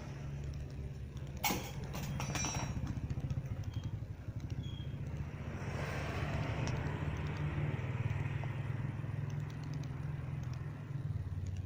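Tuned Suzuki Satria FU motorcycle engine, bored out to 200 cc, running steadily at idle, with a sharp knock about a second and a half in.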